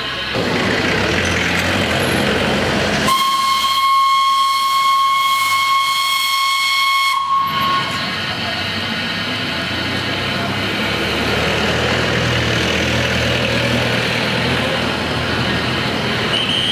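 Steam whistle of a Darjeeling Himalayan Railway 0-4-0 saddle-tank locomotive, sounding about three seconds in as one steady note held for about four seconds and cut off sharply. Before and after it there is street rumble with a running engine and the noise of the locomotive steaming.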